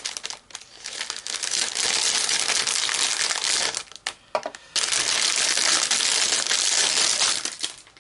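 A clear plastic packaging bag being crinkled and crumpled by hand as it is unwrapped. It makes a loud crackling racket, with a short pause about halfway through.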